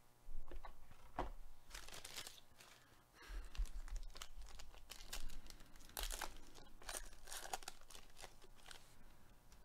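Foil wrapper of a 2021 Panini Mosaic baseball card pack crinkling and tearing as it is handled and ripped open, in a string of short rustles.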